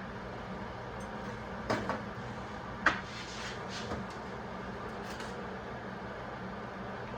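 A few short, sharp metal knocks and clinks, the loudest about three seconds in, over a steady low hum. They come from steel parts being handled and set down while a small welded art piece is put together.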